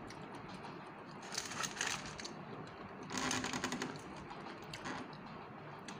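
Close-up eating sounds of grilled fish: rapid crackly clicks and crunching in two bursts, about a second in and about three seconds in.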